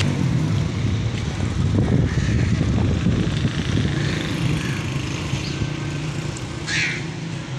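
Low, irregular rumble of wind buffeting a phone microphone, mixed with distant motor traffic. A short high-pitched sound comes near the end.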